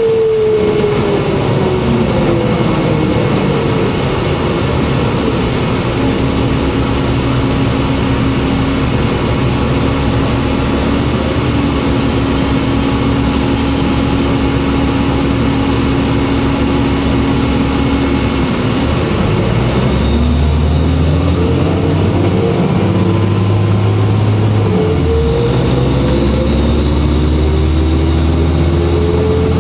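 Cabin sound of a New Flyer D40LF city bus under way, its Cummins ISL inline-six diesel and Voith D864.3E automatic transmission running. A whine falls in pitch over the first few seconds, the note holds steady while cruising, then from about two-thirds of the way through the engine pulls harder with a rising whine and a shift a few seconds later.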